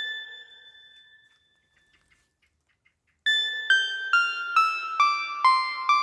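Background music on a keyboard: one note rings and fades, a short pause follows, then a run of struck notes steps downward at about two notes a second.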